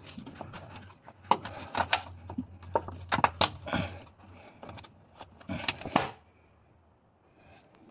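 Scattered clicks and knocks of hands and tools working at the fuel system under the hood, over a low steady hum that fades out about four and a half seconds in.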